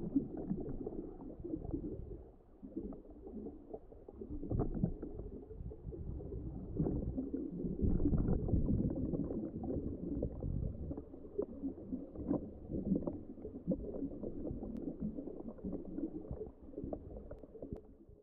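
Underwater ambience: a muffled, low rumbling wash with bubbling and scattered faint crackles, swelling a little midway and cutting off abruptly at the end.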